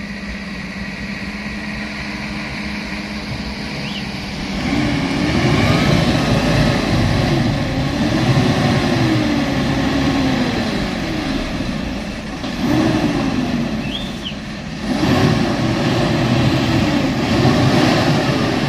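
Diesel engine of a Hino Euro 4 dump truck, running steadily at first, then from about five seconds in revving up and down again and again as the truck pulls slowly through soft, freshly filled dirt. It eases off briefly about two-thirds of the way through, then revs again.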